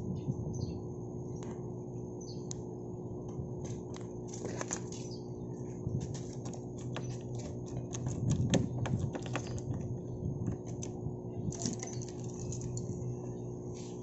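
Scattered light clicks and taps from handling the Honda PCX 150's smart key fob and ignition knob, irregular and busiest in the middle, over a steady low hum.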